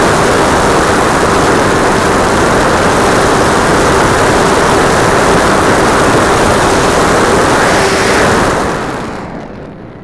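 Onboard sound of a Multiplex Blizzard RC plane's nose propeller and motor running at high throttle, a loud rush of air with a steady tone. Near the end the throttle is cut and the sound falls away to wind rush on the microphone.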